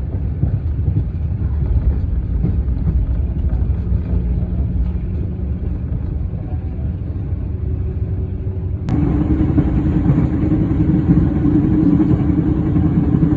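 Passenger train running, heard from inside the carriage: a steady low rumble. About nine seconds in it cuts to a louder steady drone with a hum.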